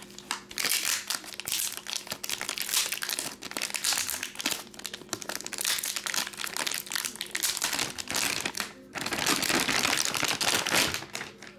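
Gold metallic foil wrapper being crinkled and crumpled by hand, a dense, irregular crackling with a brief pause about nine seconds in.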